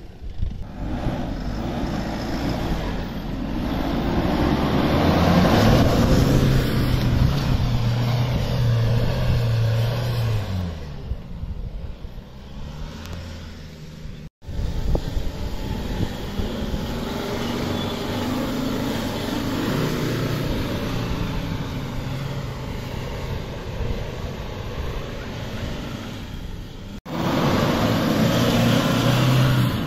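Four-wheel-drive engines revving under load while driving through soft desert sand, the engine note climbing a few seconds in and holding. Two brief breaks come where one vehicle gives way to another, the last one louder.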